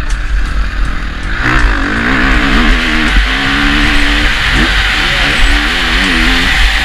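KTM motocross bike engine revving up and down through corners and straights, its pitch climbing sharply about a second and a half in, with wind buffeting the helmet-mounted microphone.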